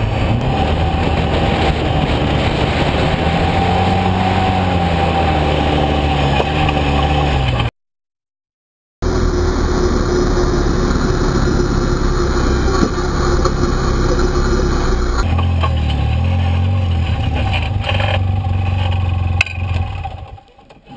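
ATV engine running under throttle across sand, its pitch rising and falling. It cuts out completely for about a second, comes back steadier, then dies away near the end.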